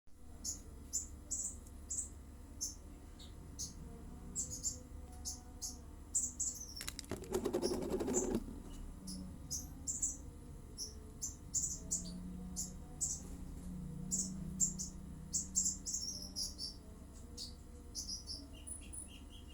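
Small birds chirping again and again in short high calls. About seven seconds in there is a brief rattling burst lasting over a second, the loudest sound, and a faint low hum comes in later.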